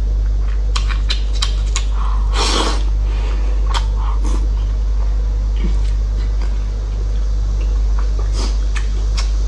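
Close-up eating sounds: wet clicks and smacks of chewing, and a short slurp about two and a half seconds in. All of it sits over a steady low hum, which is the loudest sound.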